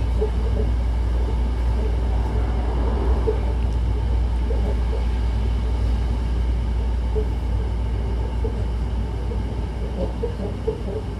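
Hankyu Takarazuka Line electric train running at speed, heard from inside the car: a steady low rumble of the running gear, with scattered short clicks that come more often near the end.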